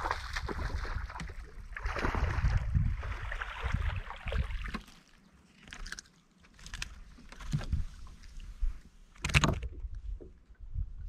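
A hooked bass splashing at the surface as it is fought to the boat, in loud noisy bursts over the first few seconds. Then scattered knocks and thumps on the boat deck as the fish is landed, with one sharp knock near the end.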